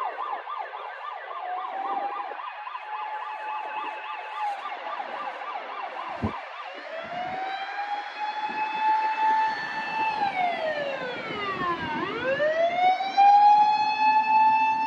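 Ambulance electronic siren on an emergency run, in its yelp mode: a rapid warble for about the first six seconds, then a slow wail that rises, holds, falls and rises again.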